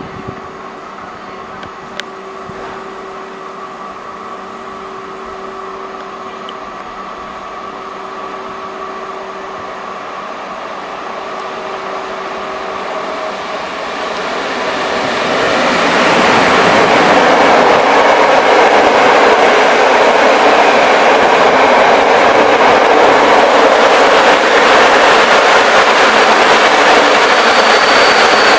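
EP07 electric locomotive hauling a train of passenger coaches approaching along the platform and running past. The sound grows steadily louder for about fifteen seconds, then gives way to the loud, steady rolling noise of the coaches going by. A high, thin squeal sets in near the end.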